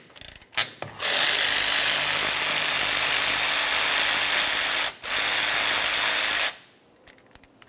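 Power ratchet spinning out a 13 mm caliper slider bolt on a Dodge Ram 2500 rear brake caliper. It runs for about four seconds from a second in, stops briefly and runs again for a second and a half, then cuts off. A few light clicks of tool and bolt come before and after.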